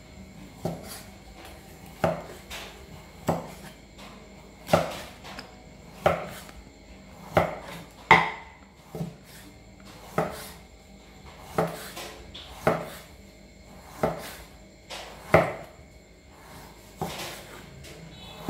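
A broad cleaver slicing raw beef on a thick round wooden chopping block, knocking on the wood at the end of each slice. The knocks come roughly once a second, at an uneven pace.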